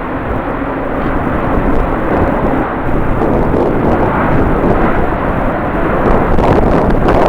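Jet airliner engines running, mixed with wind buffeting the microphone; the noise grows a little louder near the end.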